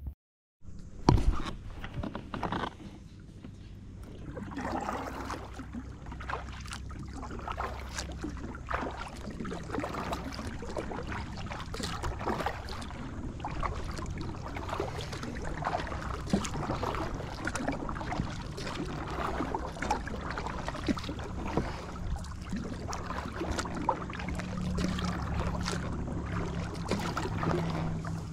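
Water lapping and sloshing against a plastic fishing kayak's hull, with many small knocks and clicks over a low steady hum. A sharp knock comes about a second in.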